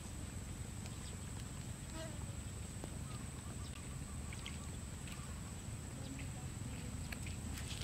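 Outdoor waterside ambience: a steady low rumble and a thin continuous high tone, with faint bird chirps and a few small clicks scattered through.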